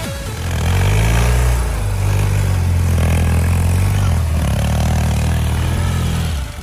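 Ural sidecar motorcycle's boxer-twin engine running hard, its deep note shifting up and down in steps as it is worked, then cutting off abruptly near the end.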